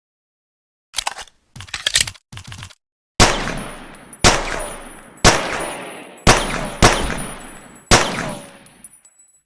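Pocket pistol sound effect: a few short clicking clatters, then six gunshots about a second apart, the last few closer together, each with a long echoing decay.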